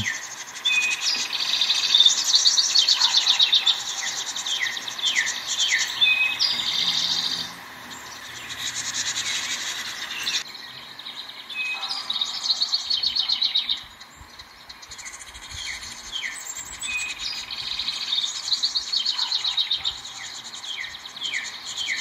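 A wren singing near its nest box: repeated songs of rapid trills and quick falling notes, each a second or two long, coming again and again.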